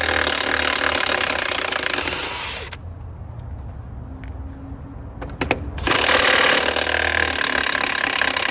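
Power impact wrench hammering lug nuts loose from a truck wheel: one run of about three seconds, a pause with a few clicks, then a second run of about three seconds.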